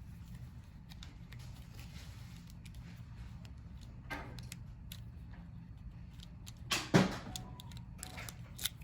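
Door latch and lock mechanism being worked through the door handle: a small click about four seconds in, a loud metallic clack about seven seconds in that rings briefly, and another click near the end.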